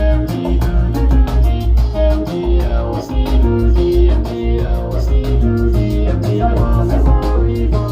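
Music with guitar, bass guitar and drum kit, with heavy bass notes and a regular drum beat.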